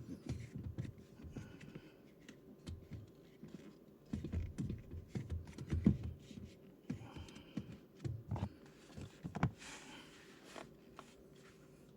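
Scattered light clicks, taps and low knocks with some rubbing, bunched in two spells about four and eight seconds in: hands and tools handling a rubber pedal cover on a car's metal brake pedal.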